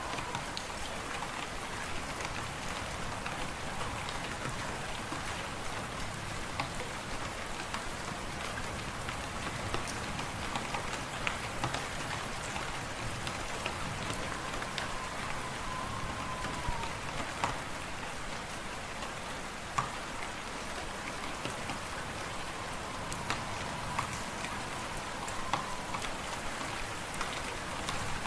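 Wood fire crackling in a fireplace, many small sharp snaps over a steady rushing noise of wind. A faint whistle of wind wavers up and down now and then.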